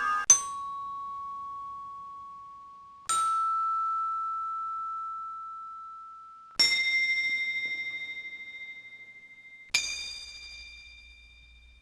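Small bells struck one at a time, four strikes about three seconds apart. Each rings out clearly and slowly fades, and each is higher in pitch than the last.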